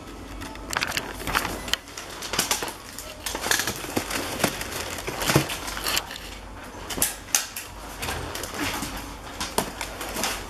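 Paper and tissue paper rustling and crinkling, with many irregular sharp clicks and light knocks, as sneakers are handled in their cardboard boxes.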